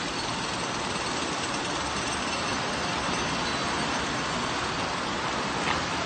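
Steady rushing background noise with no rhythm or pitch, and a single short tap about five and a half seconds in.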